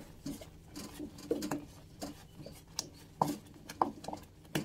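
Thick rice-flour and jelly cendol batter plopping and popping in an aluminium pot as a wooden spatula stirs it, with irregular wet pops and spatula knocks against the pot, several a second. The batter has thickened and is bubbling up as it cooks.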